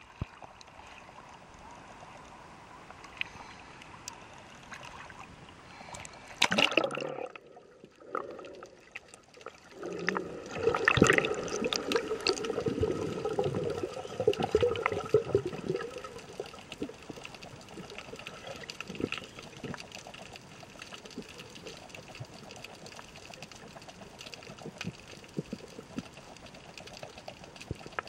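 Water splashing and sloshing around a snorkeller's camera at the surface, with a loud splash about six seconds in and heavier churning from about ten to sixteen seconds in. It settles into a steady underwater hiss with faint scattered clicks.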